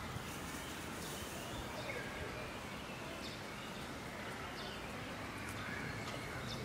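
Faint outdoor background noise with a few scattered, distant bird chirps.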